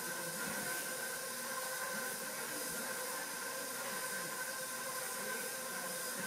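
Steady hum with a hiss, as of a small kitchen appliance motor running.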